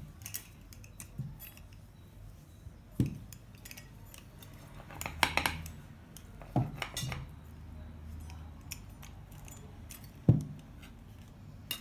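Cutlery and plates clinking and knocking at a dinner table: scattered sharp clinks, the loudest about three seconds in and again about ten seconds in.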